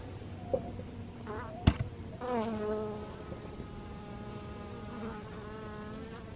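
A sharp click about a second and a half in, then a honeybee buzzing close by from about two seconds in. Its buzz is one steady hum that dips in pitch as it starts and holds until near the end.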